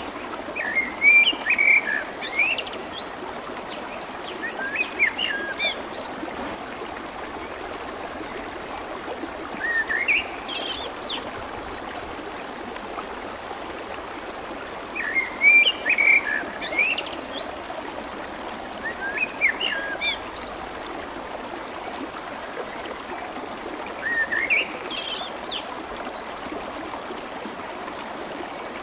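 Clear water running and babbling steadily, with a songbird singing short chirping phrases over it every four or five seconds, the same phrases coming back again and again.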